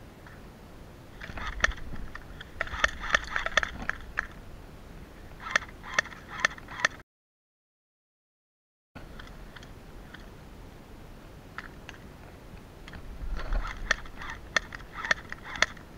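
Footsteps crunching and brushing through tall dry grass and weeds, coming in short irregular clusters of crackles and rustles. The sound cuts out completely for about two seconds in the middle.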